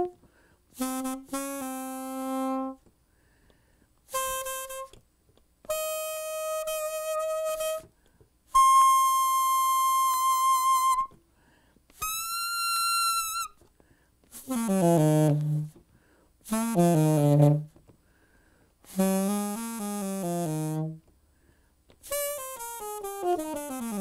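Alto saxophone played inside a saxophone practice-mute case, with a melody in about nine short phrases separated by brief pauses, some notes with vibrato.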